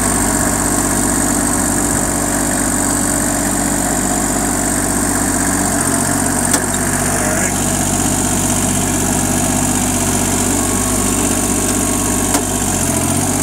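Kubota compact tractor's diesel engine running at a steady speed as the tractor drives along, with two brief knocks about six seconds apart.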